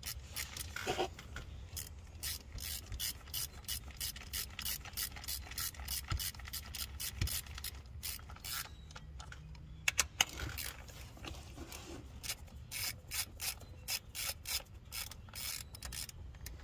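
Hand ratchet clicking steadily as it drives an ignition coil pack's hold-down bolt down, with a short pause partway through.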